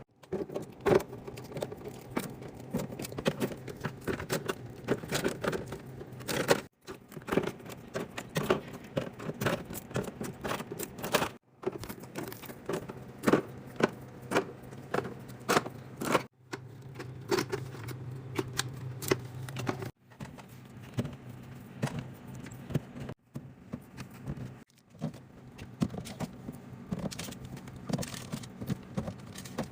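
Rapid clinking, clattering and tapping of containers being handled and set down during a fridge restock, in short stretches that cut off abruptly every few seconds.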